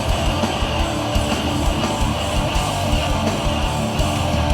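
Live hardcore punk band playing an instrumental passage: loud distorted electric guitars with bass and drums, no vocals.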